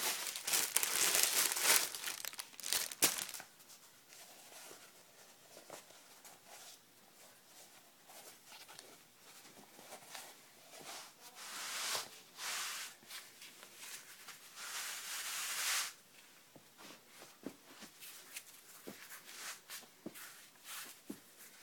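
Rustling and rubbing of hands and a neoprene knee sleeve as the sleeve is pulled up the leg over the knee. There are louder crinkling bursts at the start and twice more later, with small rustles and taps between.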